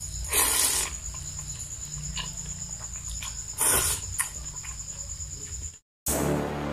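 A person slurping rice noodles off chopsticks, two loud slurps, about half a second in and near four seconds in, over a steady high pulsing trill. Music starts just before the end.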